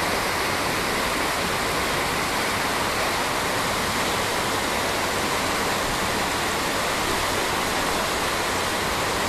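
River water rushing steadily over rocks and shallow rapids.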